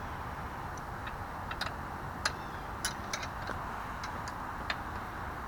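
Irregular light clicks and ticks of a wrench working on a sportbike's rear chain adjuster, about a dozen over a steady background hiss.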